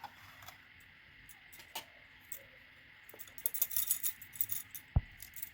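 A spoon clinking and scraping against a bowl as ground spice mix is added: scattered light clicks, a run of quick clinks about three to four seconds in, and a dull knock near the end.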